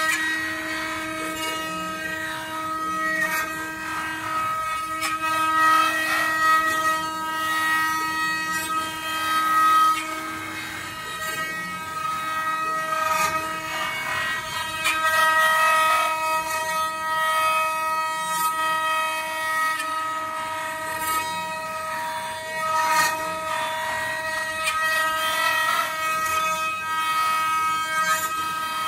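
Several spindles of a multi-head four-axis CNC wood router whining together in a steady chord of tones while their bits carve wooden blanks. Rough cutting noise and sharp cracks from the bits biting the wood come and go over it, and some of the tones drop out and return as the heads move.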